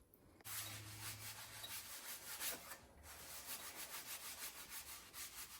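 Faint, repeated scraping of a spatula working under an oat pancake cooking in a frying pan, in quick strokes with a short pause about three seconds in.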